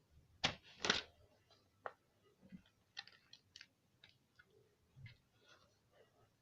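Small handling noises. Two louder sharp knocks come about half a second and a second in, followed by scattered light clicks and ticks.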